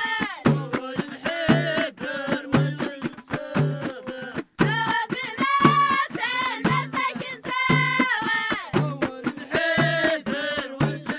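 Traditional Moroccan song from the High Atlas valleys: children's voices singing over a drum and sharp hand percussion keeping a steady beat.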